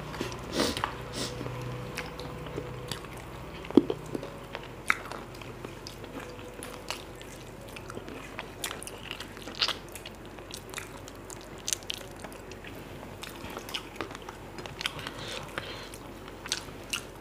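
Close-up chewing and biting of mutton biryani eaten by hand, with scattered crisp crunches, in keeping with the raw onion slices eaten with it.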